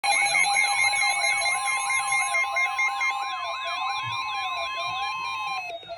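Electronic emergency alert tones: several siren-like tones sweep up and down and warble together over a steady tone just above 1 kHz. One high warbling layer drops out about 2.5 seconds in, and the rest cuts off abruptly near the end.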